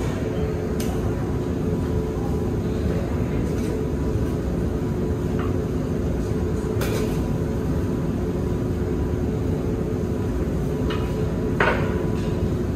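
Steady low mechanical hum of a commercial kitchen's ventilation, with a few sharp clinks of metal tongs and utensils against steel serving pans, the loudest near the end.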